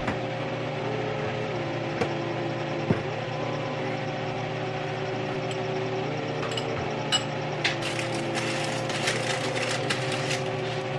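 Kitchen utensils clicking and tapping against bowls and dishes: a rice paddle, a spoon stirring in a small bowl, and chopsticks. A steady hum runs underneath. The taps come singly in the first few seconds and turn into a quick run of light clicks near the end.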